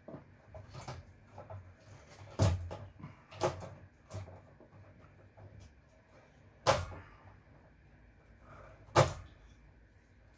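Sharp knocks and clunks of parts and hand tools being handled while equipment is dismantled for scrap: four loud ones, at about two and a half, three and a half, six and a half and nine seconds in, with smaller clicks and rattles between.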